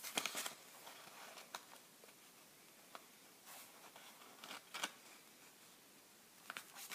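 Square of origami paper being folded diagonally by hand, rustling and brushing faintly in a few short strokes as it is lined up and pressed.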